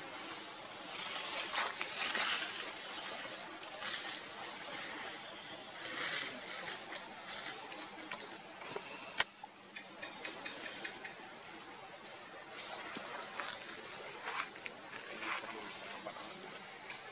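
Insects shrilling steadily at a high pitch, two even tones without a break, with scattered faint crackles and one sharp click about nine seconds in.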